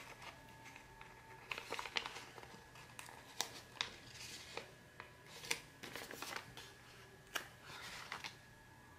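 Sticker sheets and their paper backing handled and peeled: faint rustling and crinkling, with a scatter of soft clicks and taps at irregular intervals.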